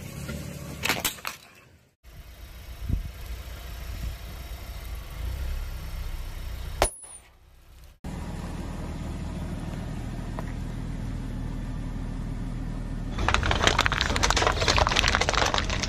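A car engine idles low as its tyre rolls slowly over objects on pavement. About a second in there is a plastic crack, and around seven seconds a single sharp snap. From about thirteen seconds comes a long, loud crinkling crunch as aluminium foil trays are flattened under the tyre.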